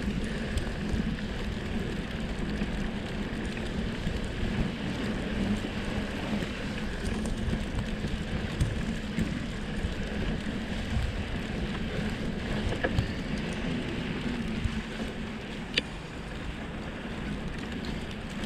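Steady rolling rumble of a fat bike's studded 3-inch tyres on a snow-covered road, mixed with wind noise on the camera microphone, with a couple of brief ticks.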